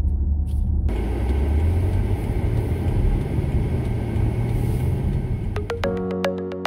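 A car driving on the road, heard from inside the cabin: a steady low engine and tyre rumble, with a broader road-noise hiss coming in about a second in. Near the end, upbeat music with plucked notes starts.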